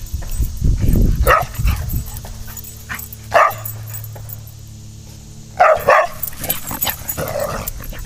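Entlebucher Sennenhund barking, about five short barks spread through the few seconds, two of them close together near the middle.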